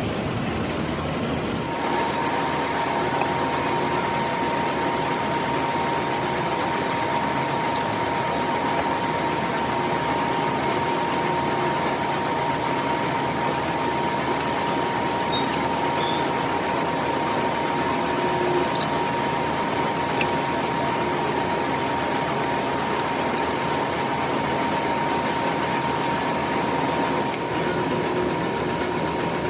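Metal lathe running steadily, with a steady high whine that sets in about two seconds in and drops away near the end.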